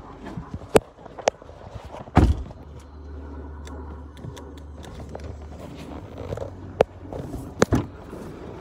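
Knocks and clicks from a phone being handled as people move about inside a car, the loudest a thud about two seconds in, over a low steady hum.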